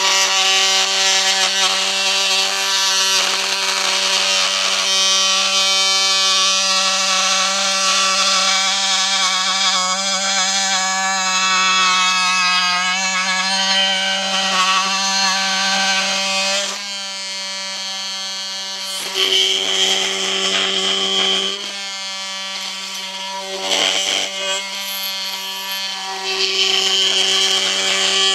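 Cordless oscillating multitool, likely a Milwaukee M18, with a titanium-coated 50 mm blade plunge-cutting into dry wood: a loud, steady buzz with a high whine that wavers as the blade bites. About two-thirds through it drops to a lighter sound for a few seconds, then comes back to full cutting load near the end.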